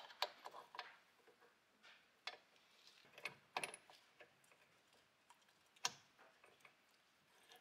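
Faint, scattered metallic clicks and light taps as the gears, shift forks and shift drum of a 1998 Honda CR125R two-stroke gearbox are handled and fitted into the crankcase half.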